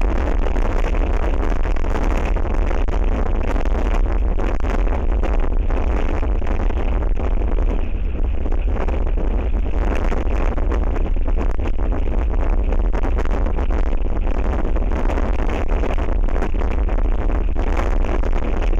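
Strong wind buffeting an outdoor camera microphone: a steady, heavy low rumble with a rushing hiss.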